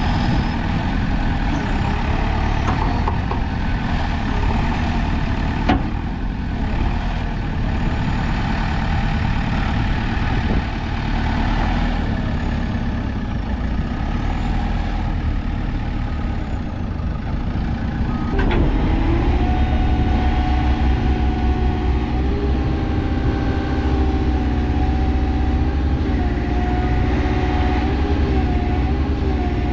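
2010 JCB 3CX backhoe loader's four-cylinder diesel engine running steadily. About eighteen seconds in there is a click, and the sound grows louder, with a steady tone that wavers slightly on top.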